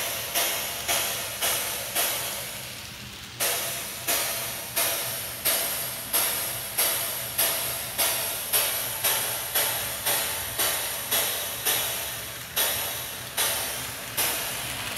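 Steam locomotive exhaust chuffing at a slow, even beat, about three chuffs every two seconds. It fades away about two seconds in and starts up again a moment later.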